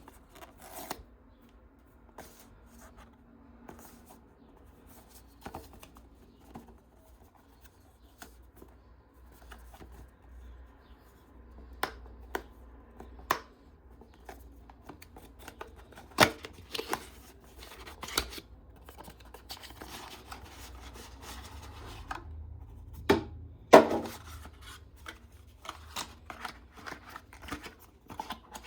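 Packaging being handled and opened by hand: rustling, rubbing and scattered sharp clicks and taps, with a few louder clicks in the second half.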